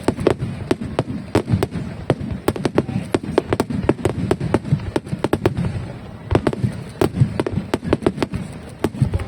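Aerial fireworks bursting in rapid succession: a dense run of sharp bangs and crackles, many per second, easing briefly about six seconds in before picking up again.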